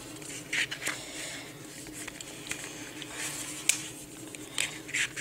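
Light handling of the iPad's paper manual envelope: a few soft paper brushes and a tap, over a faint steady hum.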